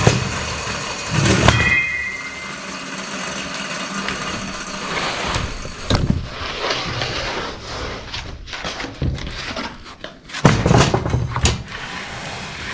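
Sawn tamarack siding boards being handled on a sawmill's steel roller table: wood sliding and scraping, with several sharp wooden knocks and clatters as boards are turned and set down. The loudest knocks come about six seconds in and near the end.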